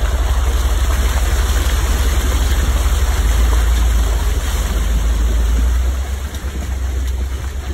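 1998 Jeep Grand Cherokee ZJ 5.9 Limited driving through a wet, muddy stretch of trail: its tires splash through water and mud over a continuous low rumble of the moving vehicle. The rumble drops off somewhat about six seconds in.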